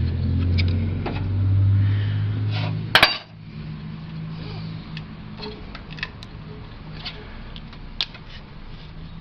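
Hand tools and metal parts clinking while a hose is worked off an engine. A low steady hum runs until one sharp metallic clank about three seconds in, then scattered light clicks and taps.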